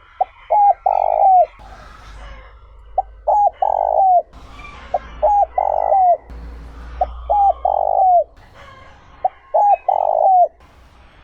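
Male spotted dove cooing its territorial song five times, about two seconds apart. Each phrase is a short note, a quick double note, then a long held coo that slides down at the end.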